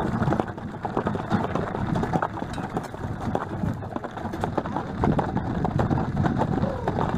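Hooves of a pair of Friesian horses clip-clopping on a dirt and gravel lane as they pull a carriage, with the carriage rattling along behind them: a continuous run of irregular knocks and clatter.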